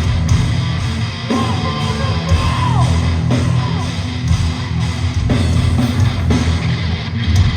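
Hardcore band playing live and loud: distorted electric guitars over bass and drums.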